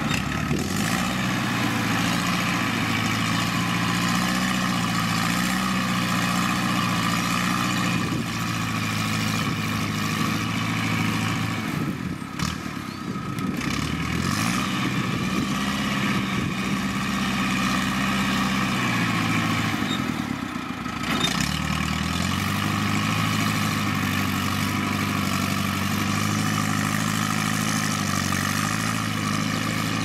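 Farm tractor's diesel engine running under load while it pushes wet clay with a front blade. The engine note sags and climbs back twice, about twelve seconds in and again about twenty seconds in.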